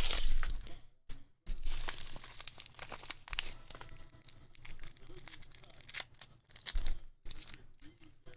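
A padded paper mailer torn open with a loud rip in the first second, then the crinkling and rustling of a plastic bag as a graded card slab is pulled out and handled, with a few sharp clicks of the hard plastic case.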